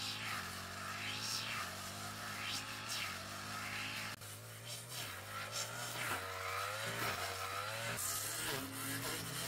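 Small motorbike engine running steadily under way, a low even hum with the pitch wavering a little in the middle.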